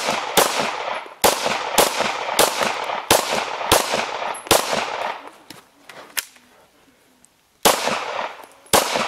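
A semi-automatic pistol firing a quick string of about ten shots, roughly one every two-thirds of a second, each with a trailing echo. The shots break off for about three seconds past the middle, then two more come near the end.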